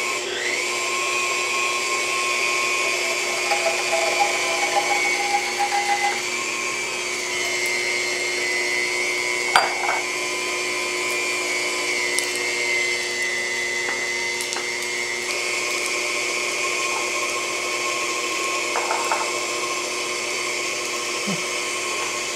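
KitchenAid stand mixer running with its meat-grinder attachment, grinding strips of raw bacon: a steady high motor whine, with one short knock about ten seconds in.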